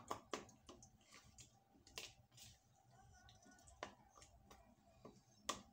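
Near silence: faint room tone with a low steady hum and a few soft, scattered clicks.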